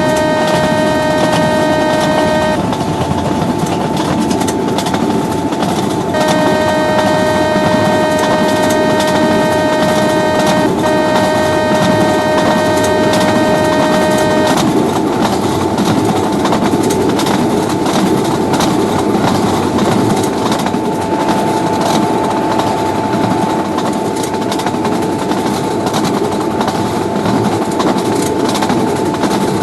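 Indian Railways train horn sounding long two-note blasts over steady train running noise: one blast ends a couple of seconds in, and another runs from about six to fourteen seconds with a brief break near the middle. After that only the running noise remains, with a fainter steady tone.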